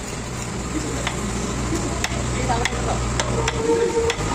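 A heavy knife chopping fish into chunks on a wooden tree-stump block: several sharp chops, spaced roughly half a second to a second apart, over a steady background hiss and low hum.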